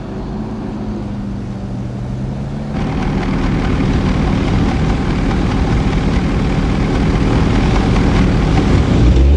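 Propeller aircraft engine drone, low and steady at first, then growing steadily louder from about three seconds in as the plane approaches.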